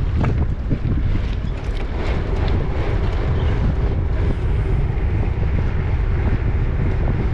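Wind buffeting a microphone on a moving bicycle: a loud, steady low rumble.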